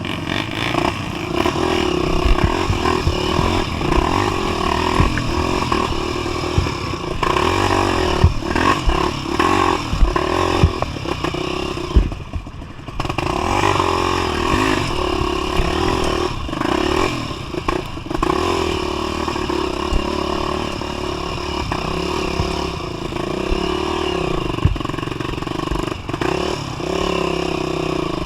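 250 cc four-stroke single-cylinder trail motorcycle engine running under changing throttle while riding a rough dirt trail, with frequent clattering knocks from the bike over the terrain. The engine falls off briefly about twelve seconds in, then picks up again.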